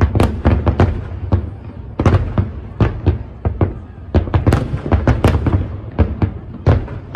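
Aerial firework shells bursting in quick, irregular succession: many sharp bangs, several a second, over a continuous low rumble.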